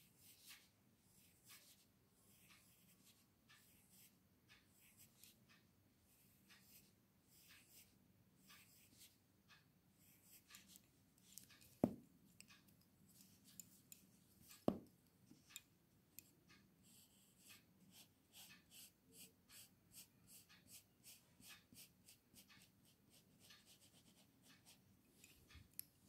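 Graphite pencil scratching on drawing paper in many short, quick strokes as feather and branch marks are sketched, faint throughout. Two sharp taps stand out, about twelve and fifteen seconds in.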